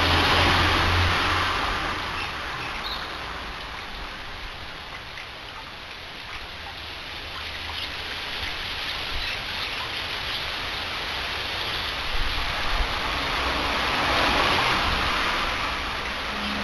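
Road traffic going by: tyre and engine noise swelling as vehicles pass, loudest at the start and again about fourteen seconds in, fading in between. A couple of short knocks about twelve seconds in.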